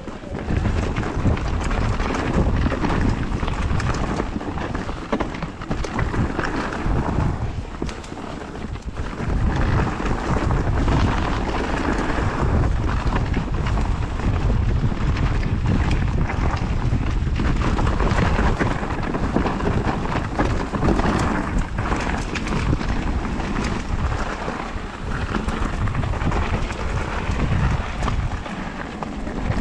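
Wind buffeting a GoPro's microphone during a mountain-bike ride on a wet trail, over the steady rumble of the tyres and frequent short knocks and rattles as the bike runs over rough ground.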